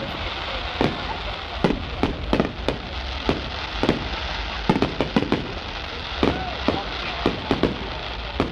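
Fireworks display going off: a run of sharp, irregular bangs and pops, roughly two a second, over a steady background of crowd noise.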